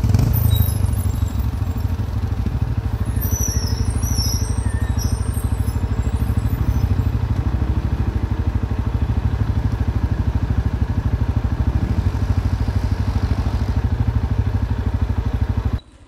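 CFMoto 450L ATV's single-cylinder engine running steadily, with a fast even pulse, under way on a ride. The sound cuts off suddenly near the end.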